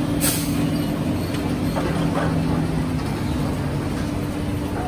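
Heavy diesel plant, the engines of excavators and a tipper truck, running steadily as a low hum with a constant pitch; its lower tone fades about three seconds in. A short sharp knock comes just after the start.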